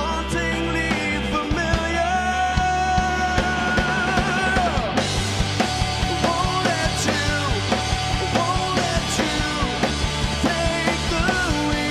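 Rock band playing live: electric guitar, bass and drums, with singing and long wavering held notes.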